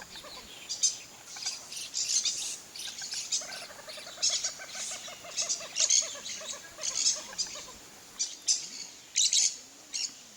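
Wild birds calling: many short, high chirps repeated throughout, with a quick run of lower clucking notes a few seconds in.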